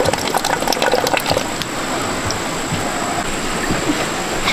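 Wet rice batter running and trickling out of a hand-turned stone mill, a steady watery flow with a scatter of small crackling clicks in the first second or so.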